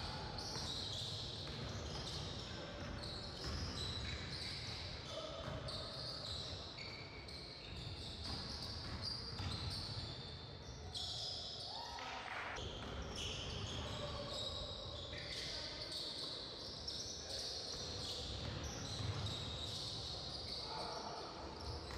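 Live basketball game sound in a gym: the ball bouncing on the court, short knocks of play and players' voices calling out, carrying in the large hall.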